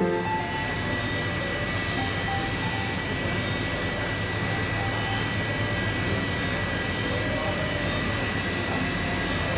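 Steady machinery roar on a crystal-cutting factory floor, with a thin, steady high whine over it and a low hum beneath.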